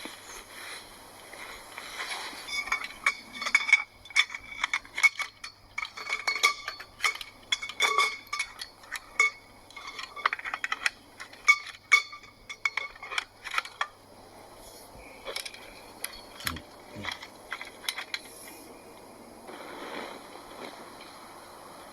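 Small metal tent poles clinking and knocking together as they are handled and fitted, a quick run of sharp ringing clinks. After about fourteen seconds the clinks become sparser and softer.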